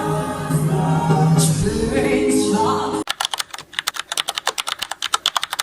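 Music with a singing voice that cuts off abruptly about halfway through, followed by a fast, even train of sharp clicks, about ten a second.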